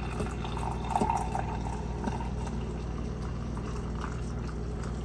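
Coffee maker dispensing a steady stream of coffee into a ceramic mug, with a low steady hum from the machine underneath.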